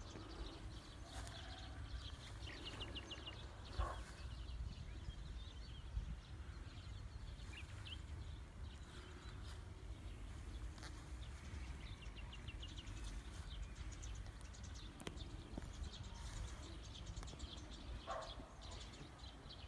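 Outdoor ambience: birds calling in short rapid trills here and there, over a steady low rumble, with a couple of soft bumps about 4 and 6 seconds in.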